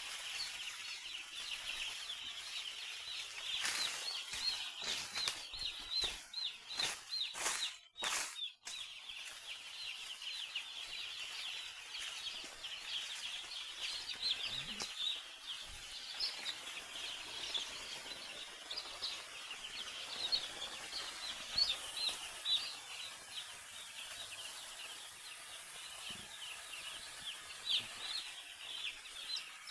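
A flock of chickens calling in a dense, continuous chorus of short high calls, with a few sharp knocks or rustles between about four and nine seconds in.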